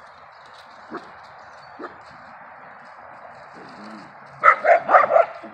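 Dogs play-fighting, Peruvian Inca Orchid dogs among them: two short yelps about one and two seconds in, then from about four and a half seconds a rapid run of loud barks and growls, over a steady hiss.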